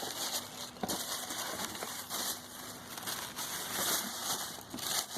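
Paper and cardboard packaging rustling and crinkling in bursts as a shoe box is unpacked by hand.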